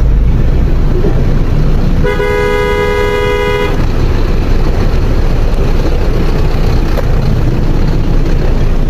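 City street traffic, a steady loud rumble of engines and tyres, with a vehicle horn sounding once about two seconds in and held for under two seconds.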